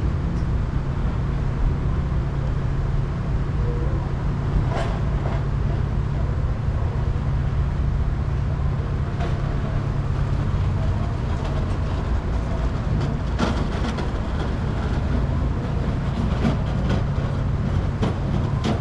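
Honda Rebel 1100 motorcycle's parallel-twin engine running with a steady low drone, with a few light clicks over it.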